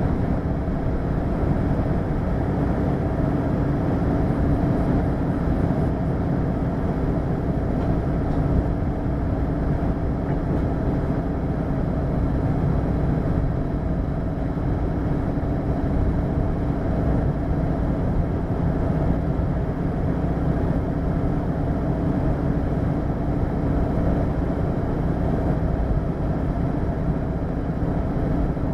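Hino LKG-KV234N3 diesel city bus running steadily: an even engine hum with a few constant low tones and no revving or change in pitch.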